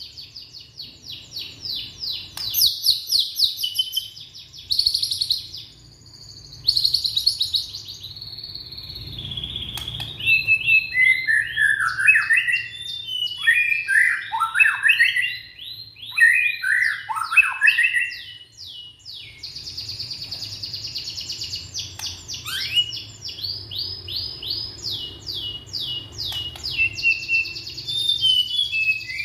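Young white-rumped shama (murai batu) singing: fast, high chattering trills, then a run of varied whistled notes sweeping downward about a third of the way in, then rapid high trills again after a brief pause.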